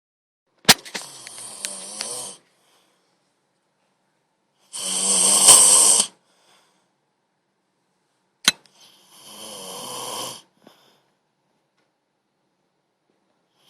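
A person snoring loudly: three long rasping snores about four seconds apart, the middle one the loudest, the first and third each starting with a sharp click.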